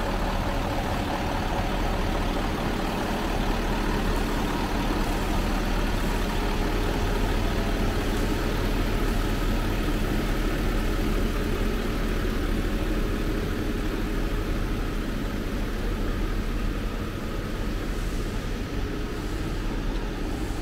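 Heavy truck diesel engine idling steadily, a constant low hum that does not rise or fall.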